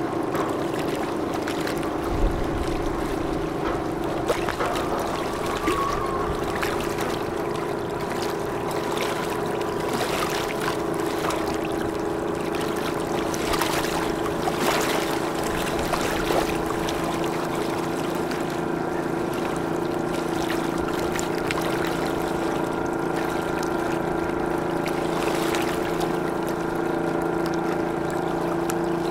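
Steady drone of marine diesel engines working as a harbour tug pushes against a container ship's hull, with a few light knocks in the first half.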